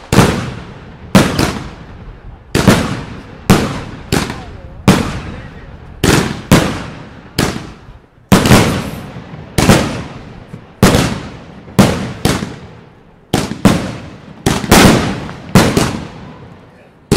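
Two Klasek DumBum Big 36-shot, 50 mm firework cakes firing together: a steady string of loud bangs, a little more than one a second, each trailing off briefly.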